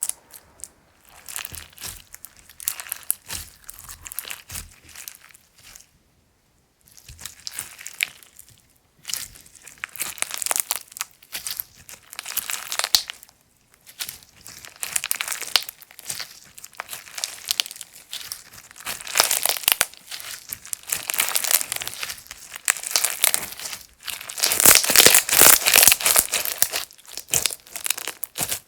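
Slime being handled, stretched, folded and pressed, giving runs of many small crackles and pops in irregular stretches with brief pauses. It is loudest and densest near the end.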